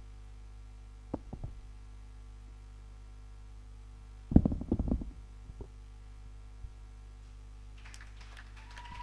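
Steady low electrical hum from a sound system, broken by a single click about a second in and a short burst of loud thumps and knocks about four seconds in. Music begins to come in near the end.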